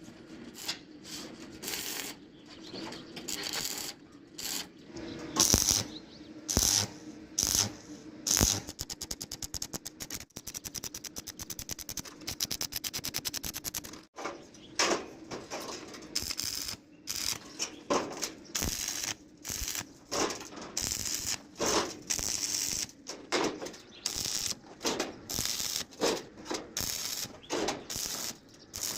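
Metalworking on an iron door: irregular sharp clicks and knocks, with a fast, even run of ticks from about 8 to 14 seconds in.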